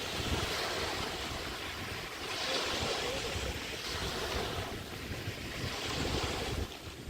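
Small Chesapeake Bay waves washing on the beach, the surf swelling and easing about every one to two seconds, with wind rumbling on the microphone.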